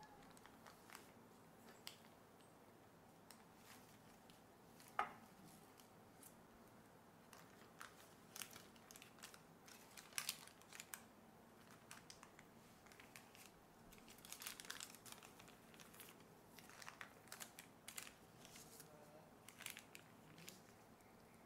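Faint crinkling and rustling of baking paper being peeled away from the sides of a sponge cake, in short scattered crackles, with one soft knock about five seconds in.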